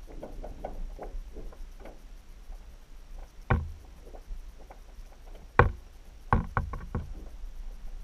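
Knocks and taps picked up by a camera in an underwater housing beneath the ice, over a low steady rumble: scattered faint clicks, one sharp knock about three and a half seconds in, a louder one near six seconds, then a quick run of four or five knocks.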